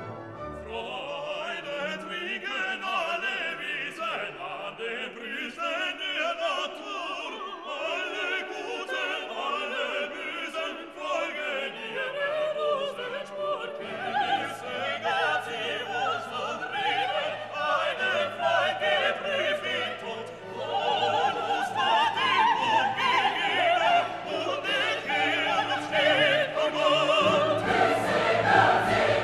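Classical background music: operatic singing with orchestral accompaniment. A low bass part comes in about halfway, and the music grows fuller and louder near the end.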